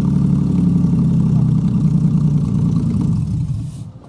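Car engine idling with a steady low hum, dying away near the end.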